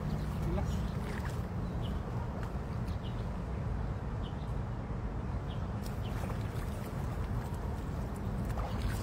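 Steady low rumble with a few small splashes and clicks as hands grope among stones in shallow creek water.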